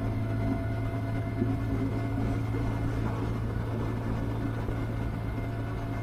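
Benelli TRK 502X motorcycle's 500 cc parallel-twin engine running at a steady, unchanging pitch.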